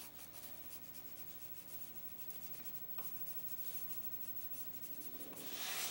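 Faint pencil strokes scratching on drawing paper, many quick light strokes, with a louder rustle near the end.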